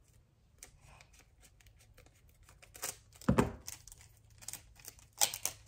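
Scissors snipping open a Pokémon card pack and the wrapper crinkling as it is handled: a run of small crackles, with louder snips and rustles about three seconds in and again near the end.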